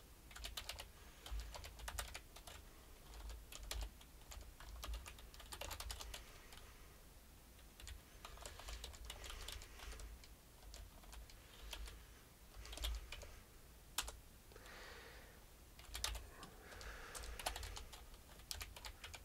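Typing on a computer keyboard: quick runs of keystrokes with short pauses between them as a terminal command is entered.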